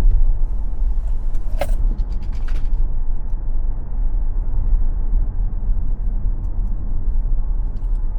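Tesla Model X electric car driving on a racetrack, heard from inside the cabin: a steady low rumble of tyres and road with no engine note. There are a few sharp clicks and ticks in the first three seconds.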